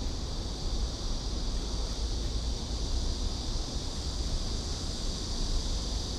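Wind buffeting the action-camera microphone: a steady, unsteady low rumble with an even high hiss above it.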